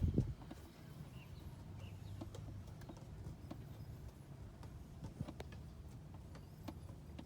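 One dull thump at the start, then scattered light clicks and taps over a low rumble.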